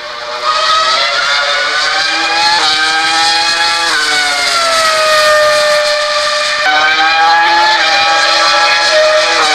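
Formula 1 car's engine running hard and loud, its pitch gliding and jumping abruptly several times as it changes gear.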